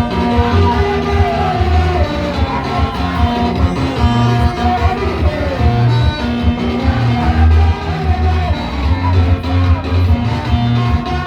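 Praise and worship music: singing over guitar with a strong, pulsing bass line.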